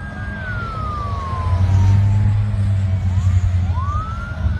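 Airport fire truck siren wailing: a high tone held, then sliding slowly down over about two seconds and rising again near the end. Underneath runs a loud, steady low engine drone.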